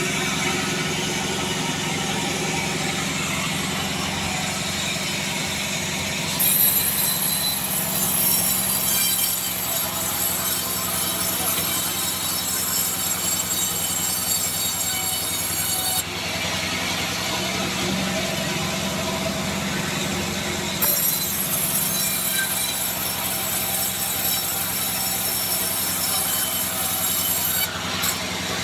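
Band sawmill running, its blade cutting through a Bayur wood log. A high hiss from the cut comes in twice, each time for several seconds, over the machine's steady hum.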